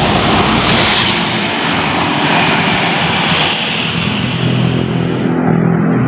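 A Mercedes-Benz double-decker coach passes close by, its engine and tyres making a loud rushing noise that dies away after about three and a half seconds. A steady low engine hum from a second coach approaching takes over.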